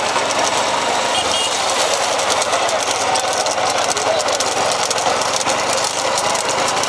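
A steady din of running motor engines with rattling and crackle, and voices mixed in.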